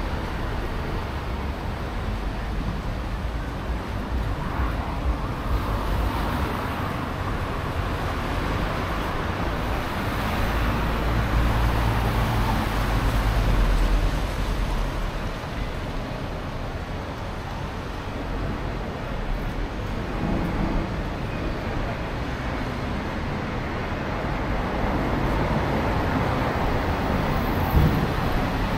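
Street traffic: vehicles passing with a steady engine and tyre rumble, swelling to its loudest about 10 to 14 seconds in.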